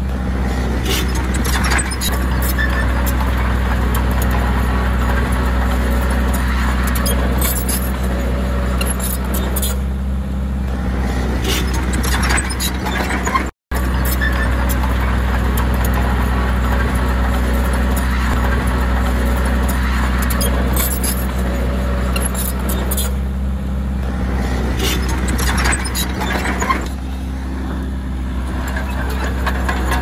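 Small crawler bulldozer's diesel engine running steadily under work, with scattered clicks and clanks from its steel tracks. The sound cuts out for an instant about halfway through.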